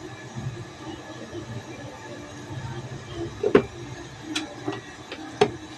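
A few sharp clicks and knocks from a light being handled and fitted together during its repair: four in about two seconds, starting a little past halfway, over a low background hum.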